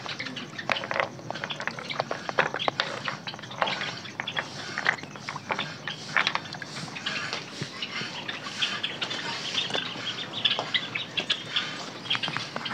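Smooth river stones clacking and knocking against one another as they are lifted and set down in shallow water, with small wet splashes. Birds chirp in the background, more of it near the end.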